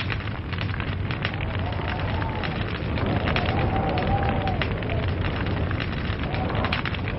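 Wood log fire crackling, with many small irregular pops over a steady low rumble of flames. A faint wavering whine rises and falls around the middle.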